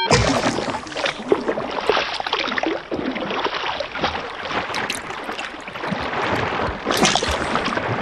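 Water splashing and gurgling: it sets in suddenly and runs on unevenly with many small splashes, swelling briefly about seven seconds in.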